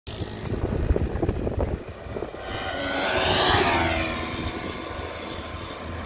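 A vehicle running, with low rumble and buffeting, then a rushing pass-by that swells to its loudest about three and a half seconds in and fades away.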